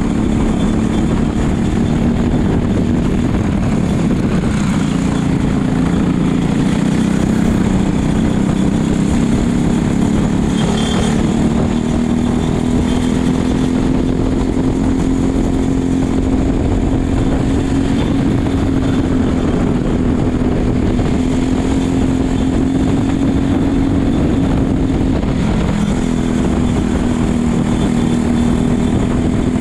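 Racing kart engine running at speed, heard from the driver's helmet, its pitch climbing slowly along a straight and dipping briefly about four seconds and again about twenty-six seconds in as the driver lifts for corners. A steady rushing noise sits under the engine throughout.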